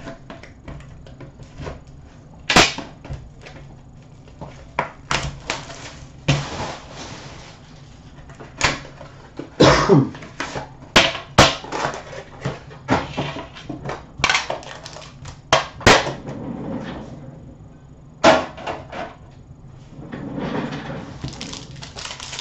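Hands opening a sealed UD Premier hockey card box: a knife slits the shrink-wrap, followed by scattered sharp knocks and clicks as the box and lid are handled and set down, with brief scraping and rustling of wrapper and packaging, thickest near the end.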